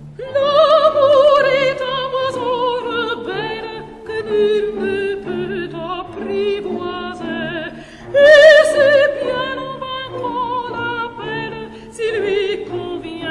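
Music: a high operatic voice in soprano range sings long held notes with wide vibrato, each phrase sliding slowly down, over a soft orchestral accompaniment. A new, loudest phrase comes in about two-thirds of the way through.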